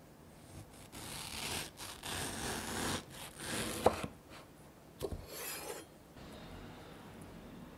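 Kitchen knife slicing through a mango beside the stone on a wooden cutting board: a long rasping cut through skin and flesh that ends in a sharp knock about four seconds in, then a second knock and a short cut about a second later as the cheek comes free.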